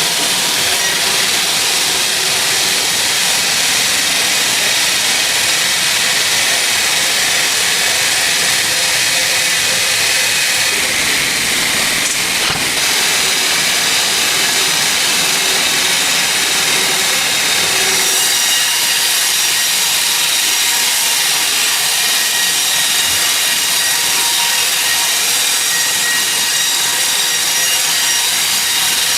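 Sawmill saw cutting lengthwise through a teak log: a loud, steady, hissing cut, with faint steady whining tones over it.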